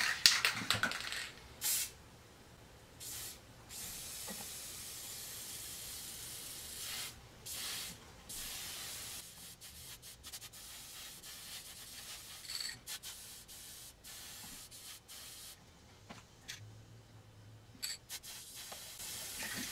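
Aerosol can of Rust-Oleum flat brown spray paint hissing in several bursts: a couple of short ones, then a longer steady one of about three seconds, then shorter, fainter ones in the second half. It is sprayed to sputter and spatter a fake rust effect rather than as a straight spray.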